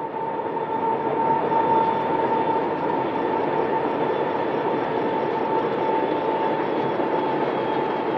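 Heavy freight train running along the rails: a steady rumble of wheel and rail noise with a steady high-pitched tone over it, swelling during the first second.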